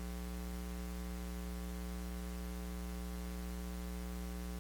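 Steady electrical mains hum with a faint hiss, coming through the recording or sound system. It holds an even buzzing tone with its overtones and does not change.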